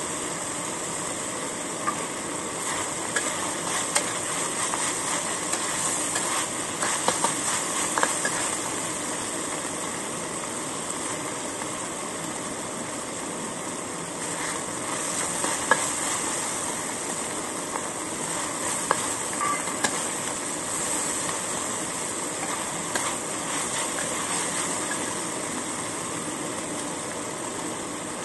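Minced chicken and string beans sizzling in a hot wok while a metal spatula stirs them, with scattered sharp clinks and scrapes of the spatula on the wok.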